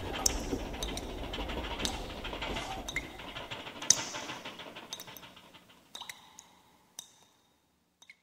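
Ship's-brig sound-effect ambience: a low rumble under scattered sharp clicks and clinks, fading out over several seconds to silence, with two faint clicks near the end.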